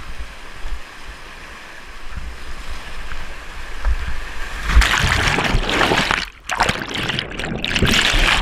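Whitewater rapids rushing around a kayak, with wind and water buffeting the camera microphone. A little over halfway through the rushing swells sharply and stays loud as the kayak drops into the rapid and water breaks over the camera, dipping briefly once.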